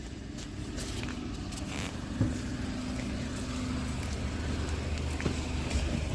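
A motor vehicle's engine running with a steady low hum that grows gradually louder.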